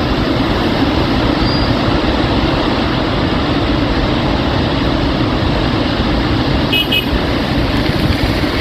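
Water rushing out of the Srisailam dam's open spillway gates and crashing into the river below, a steady loud roar: the full reservoir releasing about 93,000 cubic feet per second. A short double beep sounds about seven seconds in.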